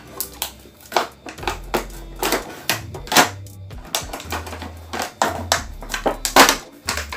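Cardboard-and-plastic doll box being pried and pulled open by hand: a run of sharp crackles, clicks and snaps, loudest about six and a half seconds in. Low bass notes of background music run underneath.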